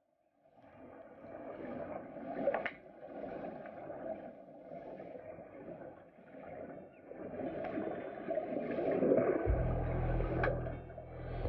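Muffled underwater bubbling and water movement in a swimming pool, with scuba divers' exhaled bubbles rising. A low steady hum comes in about nine and a half seconds in.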